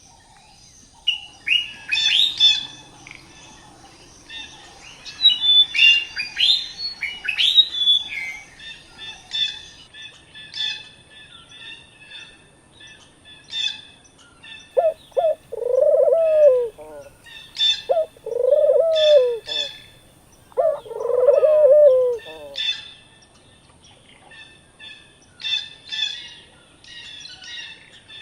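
Several songbirds chirping and twittering, busiest in the first several seconds. Midway a louder, lower bird call comes three times in a row, each about a second and a half long, rising and falling in pitch.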